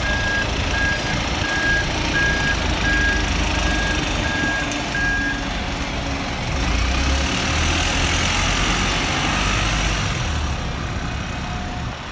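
Double-decker bus reversing out of a bus station stand, its reversing alarm beeping steadily about every 0.7 s until about five seconds in, over the engine's low running. The bus then pulls away forward, the engine and drive rising in a whine.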